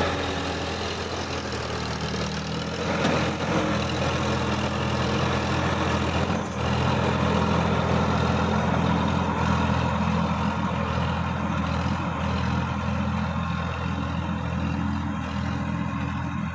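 Sonalika DI-50 RX tractor's diesel engine running steadily under load while it pulls a rotary tiller through dry soil.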